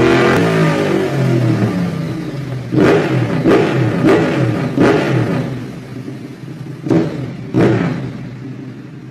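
Motorcycle engines revving: an engine note falls away over the first couple of seconds, then a series of about seven short, sharp revs rising in pitch, growing fainter toward the end.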